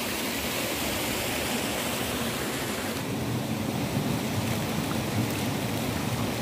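Steady rush of water from a small stream spilling over rocks, an even hiss with no separate splashes, slightly duller after about three seconds.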